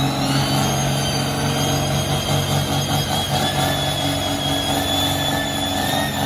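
About-1973 Case farm tractor's engine working hard under load as it drags a pulling sled, running steadily, with a high whine that climbs slightly in pitch about half a second in and then holds.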